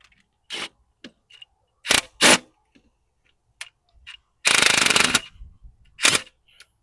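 20-volt DeWalt cordless impact hammering on a bolt: several short bursts, then one longer rapid rattling run about four and a half seconds in, as it breaks loose and backs out a bolt on the coolant hose housing of a diesel mower engine.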